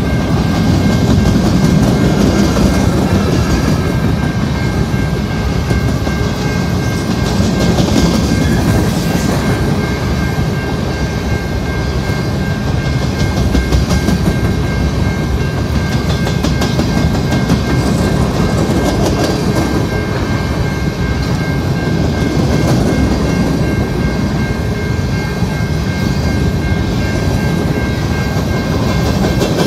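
Covered hopper cars of a freight train rolling past close by, steel wheels running over the rails in a continuous loud rumble, with a steady high-pitched ringing underneath.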